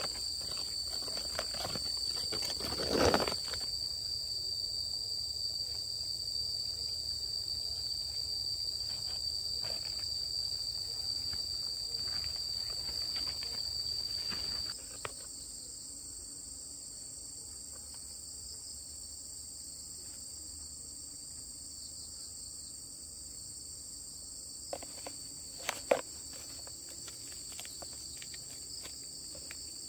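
Steady high-pitched chorus of insects such as crickets or cicadas, changing and getting quieter about halfway through. A thump about three seconds in and a few sharp knocks near the end.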